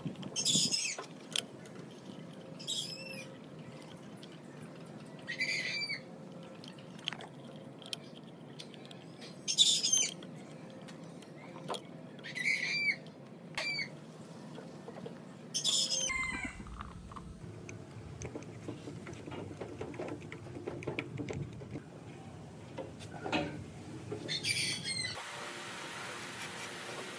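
Bird calls: short chirping phrases repeating every few seconds, with a few light clicks of a screwdriver on the motor's terminal screws in between.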